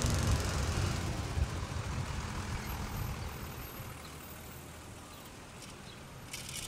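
Engine rumble of a trolley-style city bus moving off close by, fading over the first few seconds into quieter street traffic, with a short hiss near the end.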